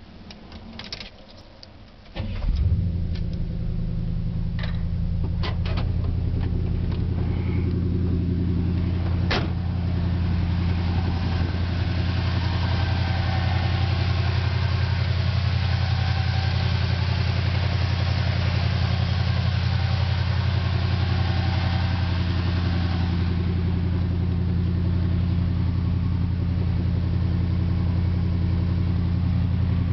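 1977 Chevrolet C10 pickup's 350 small-block V8 starting about two seconds in, after a few faint clicks, then idling steadily.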